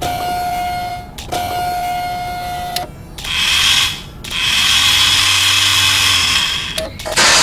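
Electronic sound effects from the iPad magic trick: two held beeping tones, each a second or more long, then a hissing noise that stops and returns for a couple of seconds with a low hum beneath it, ending in a louder burst.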